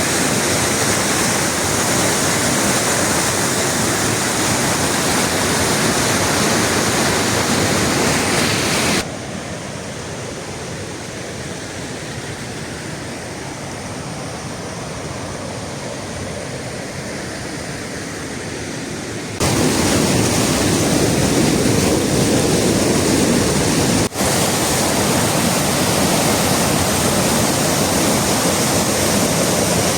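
Rushing water of a waterfall: a steady, loud rush of noise. About nine seconds in it turns quieter and duller for some ten seconds, then comes back full, with a momentary break a little later.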